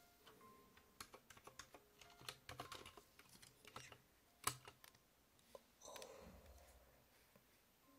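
Faint, irregular light clicks of typing on a keyboard, with one louder click about four and a half seconds in and a brief rustle about six seconds in.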